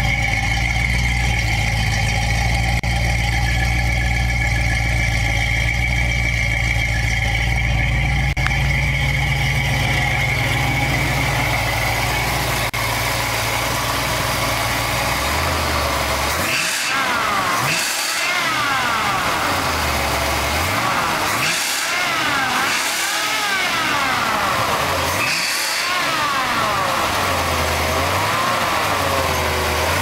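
1966 Ford Mustang's modified 302 small-block V8, built to over 420 hp, idling steadily, then from about halfway through blipped at the throttle several times, each rev rising in pitch and falling back to idle.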